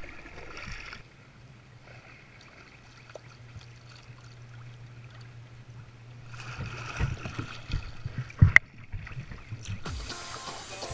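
Kayak paddling on open water: water sloshing and paddle strokes over a steady low hum, growing louder after about six seconds. Two sharp knocks in quick succession come about eight and a half seconds in, and music starts near the end.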